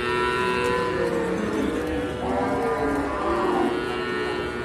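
Calves mooing in long, drawn-out, fairly high-pitched calls, one running into the next, with a fresh call starting about two seconds in.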